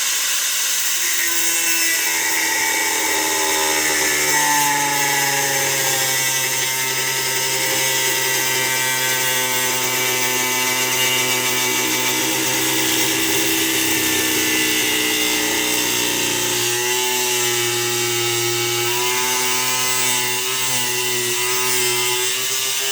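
Power cutting tool running continuously while it cuts through deer antler. Its motor pitch wavers and sags as the cut loads it, and the tone shifts about two thirds of the way through.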